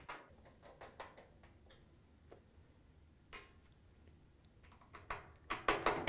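Phillips screwdriver turning screws into a dryer's door alignment tab: scattered faint ticks and clicks, with a louder run of clicks near the end.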